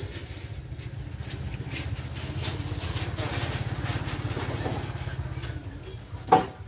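A motorcycle engine passing by with a steady low putter that grows louder through the middle and fades toward the end. A short, loud call is heard near the end.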